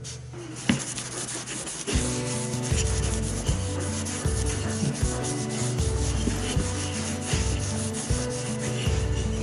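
Paper towel rubbing back and forth over a glossy resin-and-wood bit holder, a continuous scrubbing, wiping noise. Background music with held bass notes comes in about two seconds in.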